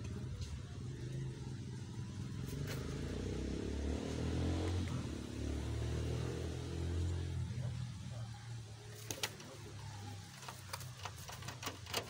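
Low engine rumble of a motor vehicle passing by, swelling to its loudest about four to five seconds in and fading out after about seven seconds, then a few sharp clicks near the end.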